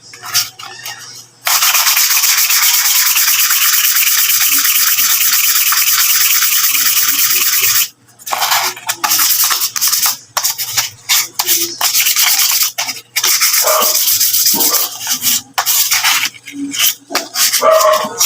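Harsh rubbing or scrubbing against a hard surface: a continuous stretch of about six seconds, then a run of short separate strokes.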